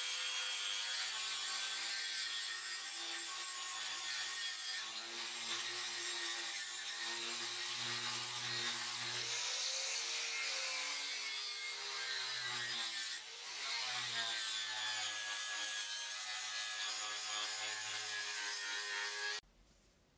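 Angle grinder running with its wheel pressed against a rusty steel knife blade, stripping the rust: a loud abrasive hiss over the motor's hum, whose pitch wavers as the wheel is pressed and eased. It cuts off suddenly near the end.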